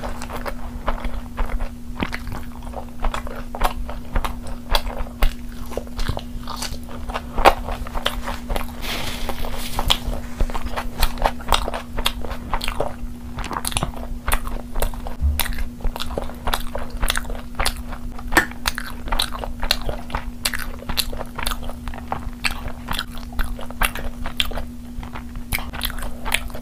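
Close-miked chewing, biting and wet lip smacking of a person eating mutton curry and rice by hand: a rapid, irregular stream of sharp smacks and clicks. A steady low hum runs underneath.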